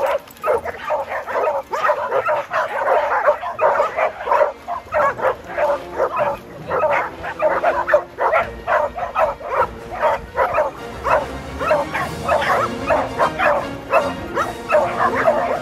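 A pack of dogs barking and yipping excitedly, with barks coming several a second, overlapping, in an almost unbroken stream.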